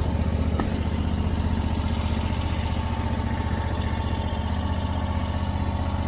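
Small gasoline engine of an Arteer QB-480 mini track loader idling steadily with an even pulse, just after being started.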